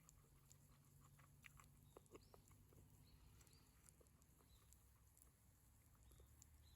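Near silence with a few faint, short clicks, most of them about one and a half to two seconds in.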